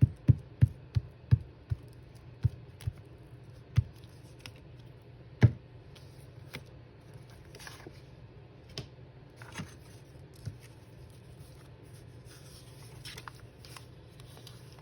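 Sharp taps and clicks of craft materials being handled on a desk while paper is glued into a notebook: a quick run of clicks in the first few seconds, one louder knock about five seconds in, then sparser ticks and light rustling. A low steady hum runs underneath.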